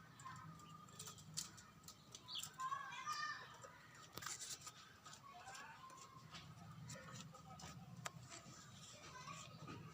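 Faint chirping and peeping of baby chicks, with a few sharp clicks and taps among them.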